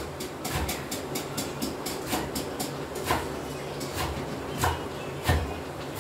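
Kitchen knife chopping greens: quick, uneven knocks, about three or four a second, with two louder chops near the end.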